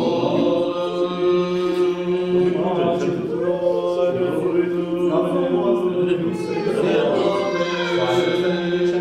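Orthodox liturgical chant: voices singing a slowly moving melody over a steady held drone note.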